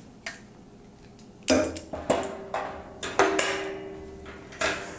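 Stainless steel sanitary valve and its clamp fitting clinking and knocking against the stainless steel boil kettle's port as the valve is fitted. A series of sharp metallic clinks, one about three seconds in ringing on briefly.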